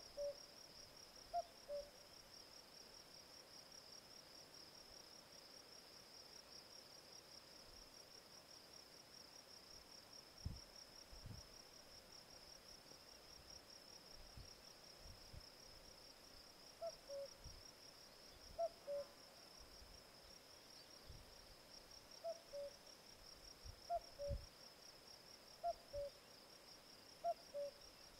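Common cuckoo (Cuculus canorus), the male's two-note cu-coo call, the second note lower. It calls twice near the start, then after a long pause repeats the call steadily, just under two seconds apart, to the end. Behind it runs a steady high-pitched insect trill.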